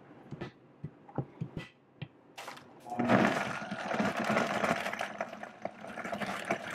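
A few light clicks, then about three seconds in a Vitamix blender motor starts and runs, churning a berry smoothie with ice.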